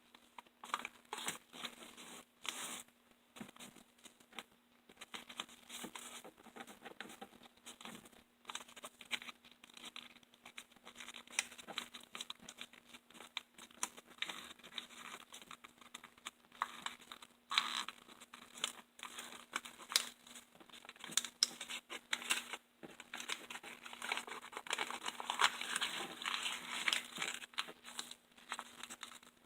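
Sheet of loose-leaf paper rustling and crinkling as it is rolled up by hand into a tight tube, with irregular small crackles throughout.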